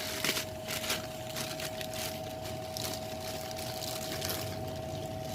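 Rustling and scraping from handling items, with irregular short crackles, over a steady high-pitched hum.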